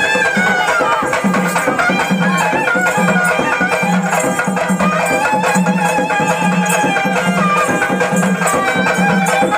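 Traditional folk music for festival dancing: tamate frame drums beating a steady rhythm of about two strokes a second, under a reedy wind instrument playing a wavering melody.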